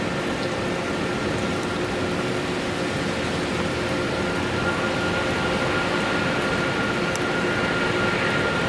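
Boeing 777-200ER's Rolls-Royce Trent 892 jet engines running, heard from a distance as a steady whine over a broad rush. The whine slowly grows louder.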